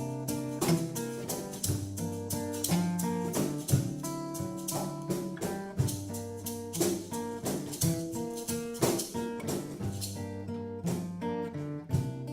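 Instrumental music led by guitar, with sharp plucked or struck notes throughout.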